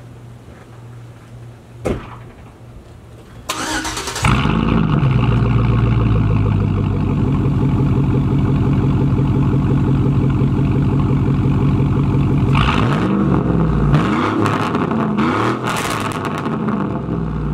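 Straight-piped 5.3 L Vortec V8 in a Chevy Silverado 1500 starting up through its open exhaust. It cranks briefly, catches about four seconds in and flares, then idles loudly. Near the end it is revved several times in quick blips.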